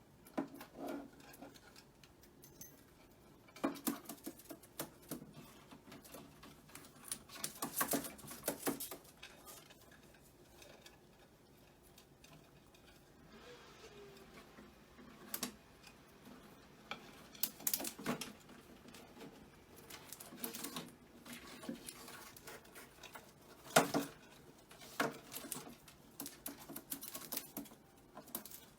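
Parrot chewing and pecking at a wooden toy: irregular clicking, tapping and gnawing in short flurries, with a few louder knocks.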